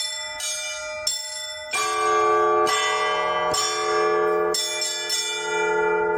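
Orthodox church bells played by a single bell ringer. High small bells chime in quick succession, then about two seconds in a larger, lower bell joins, and the bells strike together roughly once a second.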